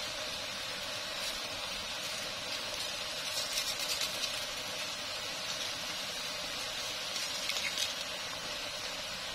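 Instant noodles simmering in broth in a pan: a steady bubbling hiss, with short bursts of crackling about three seconds in and again later on.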